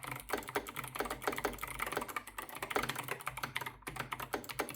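Fast typing on an 8BitDo Retro Mechanical Keyboard with clicky Kailh White switches: a dense, continuous stream of sharp key clicks, a real racket, that stops at the end.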